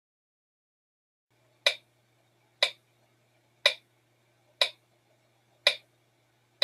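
A clock ticking steadily, one sharp tick about every second, starting about a second and a half in.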